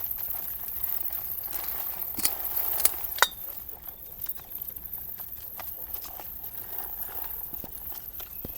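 Scattered light clicks and taps, with a few sharper knocks about two to three seconds in.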